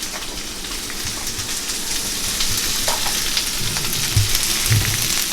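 Spinach and mushrooms sizzling steadily in a hot frying pan, the sizzle growing a little louder, with a couple of soft knocks near the end.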